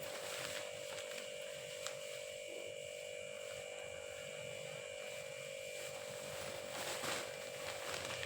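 A steady electrical hum with a few faint clicks.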